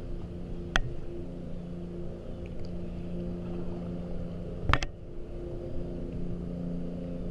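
An engine running steadily with a low, even hum. Two sharp knocks come through, one about a second in and a louder one near five seconds.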